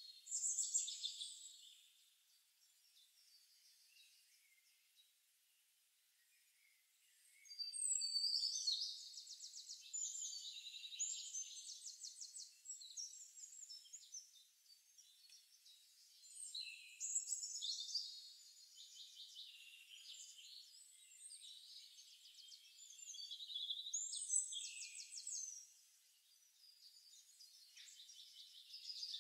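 Forest ambience of several songbirds singing: rapid high trills and chirps come in bursts, with a quieter spell of a few seconds near the start.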